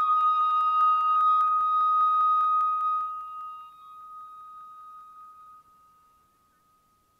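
The background music ends on a long held, flute-like note over a fast, even ticking. The ticking stops about three seconds in, and the note fades out to near silence.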